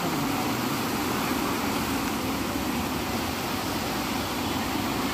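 Fast, muddy floodwater rushing along a river channel: a steady, unbroken roar of water.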